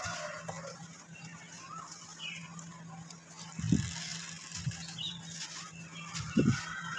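Dry red dirt crumbling as gloved hands squeeze and break clumps over a metal basin, with two dull thumps, one a little past halfway and one near the end. Birds call in the background.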